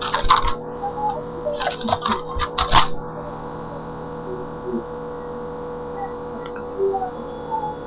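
Magazine pages being flipped and handled, a few short paper rustles in the first three seconds, over a steady electrical hum that is left alone afterwards.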